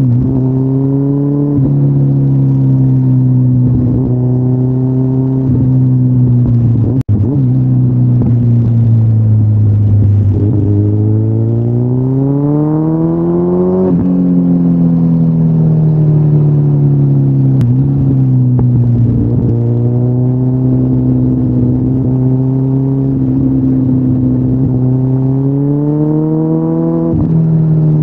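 2013 Kawasaki Ninja ZX-14R's inline-four engine through Yoshimura mufflers, running under way: the revs climb and ease off several times, with sudden drops in pitch after the climbs. The sound cuts out for an instant about seven seconds in.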